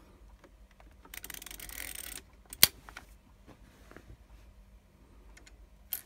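Cast-iron mechanical coin bank being reset by hand. Its metal parts scrape for about a second, then there is one sharp metallic click, followed by a few lighter clicks and another click near the end.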